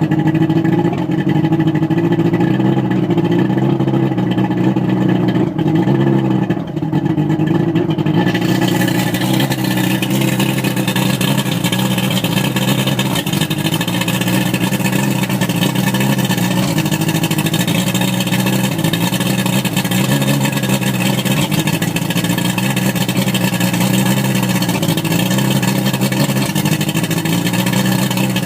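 1998 Johnson outboard motor running steadily, warmed up, with an uneven pulsing beat that the owner takes for a miss or 'sneezing'. A hiss joins in about eight seconds in.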